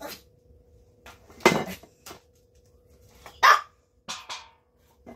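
Pet dog barking twice, short sharp barks about a second and a half in and again about two seconds later, with a few lighter clicks and a rattle of an aluminium foil pie tin being handled near the end.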